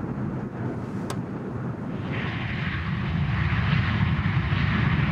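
Jet airliner in flight: a steady rush of engine and air noise, with no speech, that grows louder about two seconds in.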